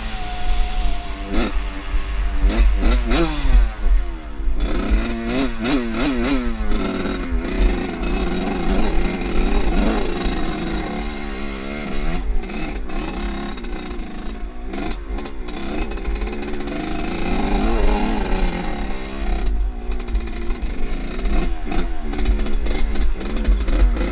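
Off-road motorcycle engine being ridden hard, revving up and dropping back over and over as the throttle is worked and gears change, with scattered knocks and clatter.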